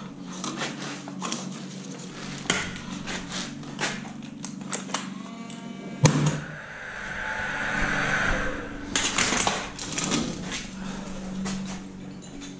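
A Makita nailer firing once into the ceiling about six seconds in, a single sharp crack, as a clip holding corrugated plastic ventilation ducts is fixed up. Before it come scattered clicks and rustles of the ducts being handled, and after it a rushing noise lasting a couple of seconds.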